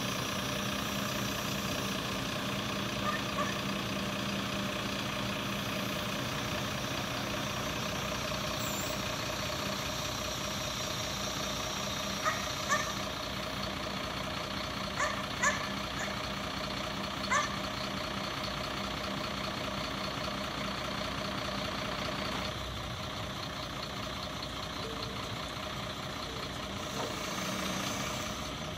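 Mercedes-Benz Axor 1824 truck's diesel engine running steadily to power its truck-mounted hydraulic loader crane while the crane lifts a pallet of paving stones. The drone eases slightly about two-thirds of the way in, and a few short sharp sounds come from the crane and load about halfway through.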